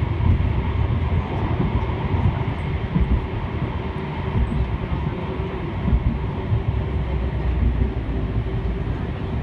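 Tram running along its rails, heard from inside the car: a steady low rumble of wheels and running gear, with a faint steady hum.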